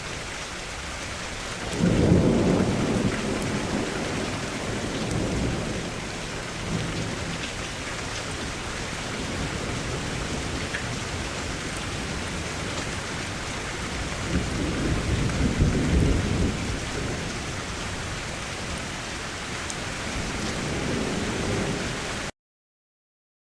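Thunderstorm: steady rain with rolls of thunder, the loudest starting suddenly about two seconds in, another long rumble around fifteen seconds and a fainter one near the end. The sound then cuts off abruptly.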